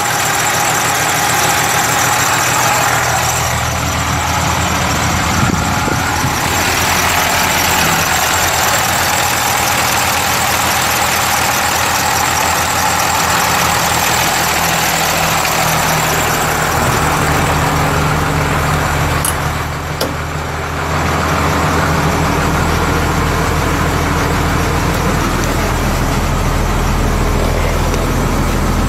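Turbo diesel engine of a 1995 International 4700 truck, an International DT466 7.6-litre inline-six, running steadily, mostly at idle. Its note changes a little over halfway through, and a deeper rumble comes in near the end.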